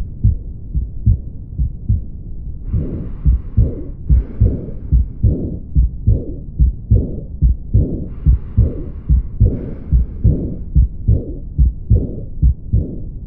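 Heart sounds heard through a stethoscope: a steady run of low beats with a murmur between them, the systolic murmur of aortic stenosis. A higher hiss comes and goes every few seconds.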